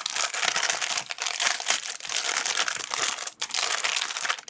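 Plastic packaging crinkling and rustling continuously as an item is unwrapped by hand, with a brief pause a little over three seconds in.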